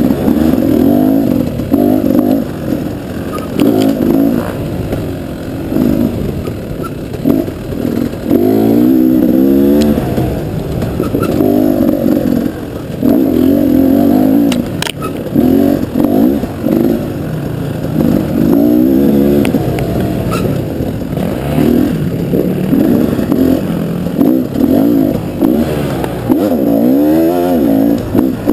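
KTM dual-sport motorcycle engine heard close up, revving up and down over and over as the throttle is worked on and off, with a few sharp clicks.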